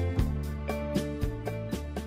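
Instrumental backing track fading out at the end of the song: a steady beat of about four hits a second over bass and held chords, growing steadily quieter.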